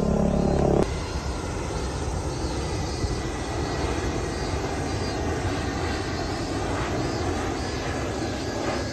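Jet airliner passing low overhead, its engines making a steady, even rushing noise. Before it, a loud droning sound with several steady pitches cuts off abruptly less than a second in.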